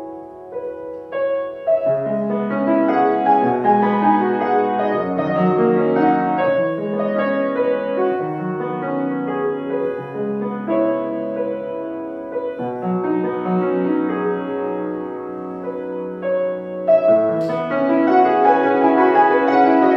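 Grand piano played solo: a piece of sustained chords over moving bass notes, starting softly and growing louder, with a fuller, louder passage near the end.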